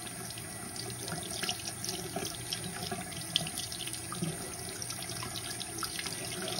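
Bathroom sink faucet running steadily, the stream splashing onto a cupped hand and into the basin.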